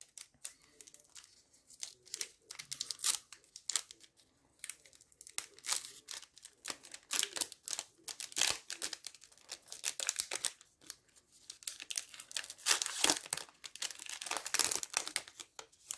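A trading card pack's plastic wrapper being torn open and crinkled by hand: a run of irregular crackles and rips, thickest near the end.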